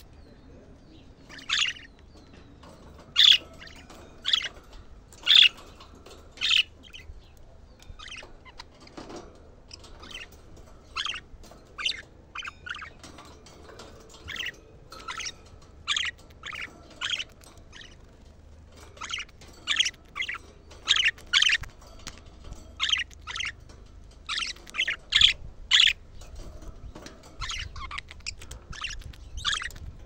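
Budgerigars giving short, sharp chirping calls one after another at irregular intervals, roughly one a second and coming thicker in the second half.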